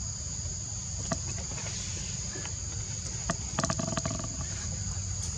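Steady high-pitched drone of forest insects, with a low background rumble. A few sharp clicks, and about three and a half seconds in a short burst of clicks with a brief pitched squeak.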